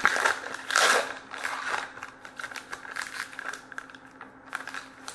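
Wrapper of a hockey card pack crinkling and rustling as it is opened by hand. A run of crinkles is loudest about a second in, then smaller rustles thin out.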